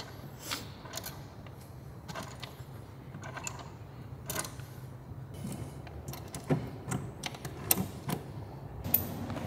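A hex key turning bolts through a seat's steel side mount while the fittings are handled, giving irregular light metallic clicks and ticks.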